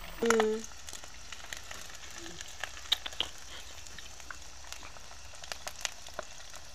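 Chicken pieces deep-frying in hot oil in a wok: a steady sizzle with scattered pops and spatters. A short vocal sound comes near the start.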